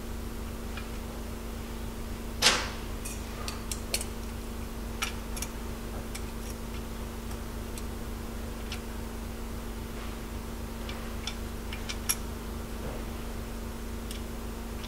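Scattered metallic clicks and clinks of a wrench and socket on the connecting-rod nuts of a Mini engine's crankshaft, with one louder clank about two and a half seconds in, over a steady hum.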